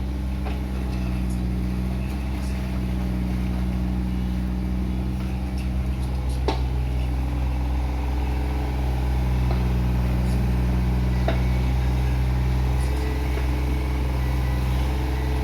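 Excavator's diesel engine running steadily, with a couple of sharp knocks and a slight rise in level from about nine seconds in.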